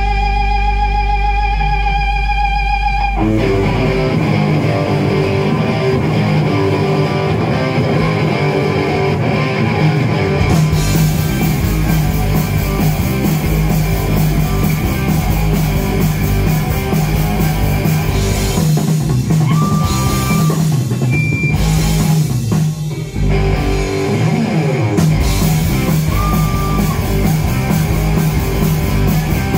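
Live rock band playing an instrumental passage on electric guitars, bass guitar and drum kit. A single held guitar note rings for about the first three seconds before the full band crashes in, and the playing breaks off for an instant about three-quarters of the way through before carrying on.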